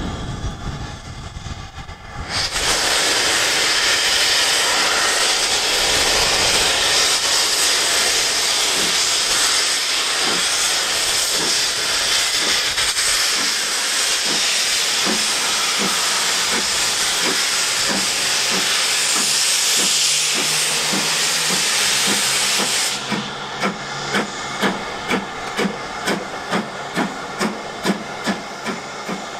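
Steam locomotive moving off. A loud, steady hiss of escaping steam starts about two seconds in, and regular exhaust beats come through it. The hiss cuts off near the end, leaving clear chuffs at about two a second.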